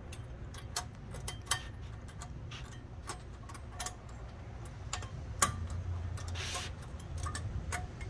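Light metallic clicks and ticks of stainless brake pad slider clips being pressed and snapped into a caliper bracket by hand, irregular, with one sharper click about five and a half seconds in and a brief rustle soon after.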